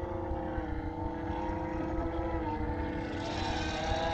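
KDS radio-controlled helicopter's motor and rotor running, a steady buzzing tone with a low rumble underneath. About three seconds in, the pitch rises and the sound grows louder and hissier.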